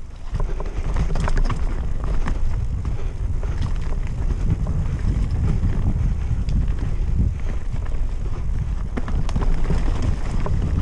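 Mountain bike descending a rough trail: wind rushing over the action camera's microphone, with tyres and the bike's frame and chain rattling and knocking continually over the rough ground.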